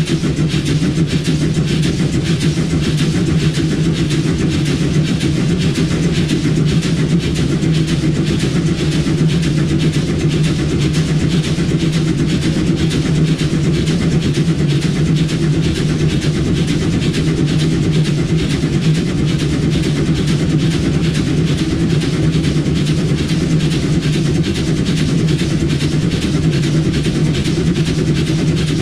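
Steady running noise inside the cab of the 1910 Swedish State Railways E2 steam locomotive no. 1040: a constant low hum and rumble with a fast, even clatter over it.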